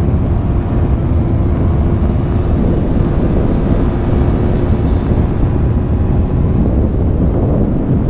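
Yamaha R3's parallel-twin engine running at a steady speed in fourth gear under loud wind rush on the microphone.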